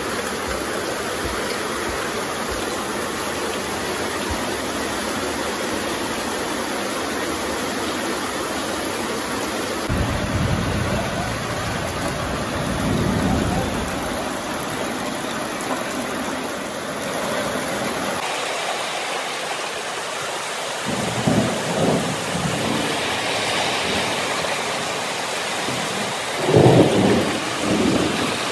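Heavy rain falling steadily on concrete and a corrugated roof, with rainwater pouring off the roof edge and splashing into a plastic tub. A few short low rumbles come through around the middle and near the end, the loudest near the end.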